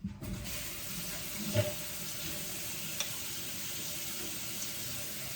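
A steady, even hiss that starts abruptly, with a light knock about one and a half seconds in and a faint tick a little later.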